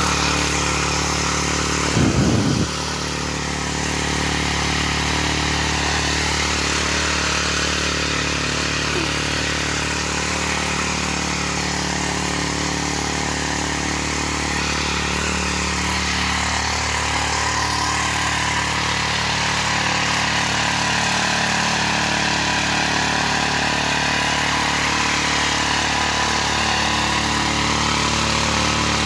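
Mitsubishi-engined rotary garden tiller running steadily while tilling soil. There is a brief louder rattling burst about two seconds in.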